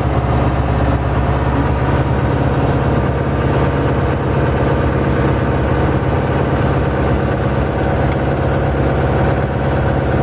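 Boat engine running steadily at an even speed, heard close up from on board.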